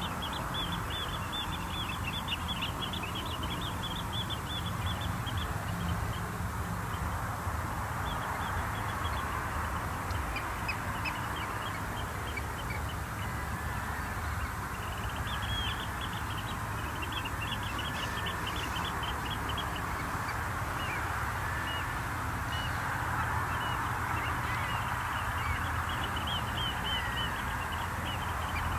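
A flock of shorebirds and gulls calling, with rapid high chattering notes in bursts of a few seconds and scattered lower calls, over a steady low hum.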